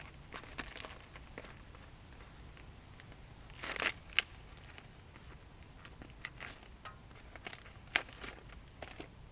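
Handling noises: scattered crinkling rustles and small clicks, with a longer, louder rustle about three and a half seconds in followed by a sharp click.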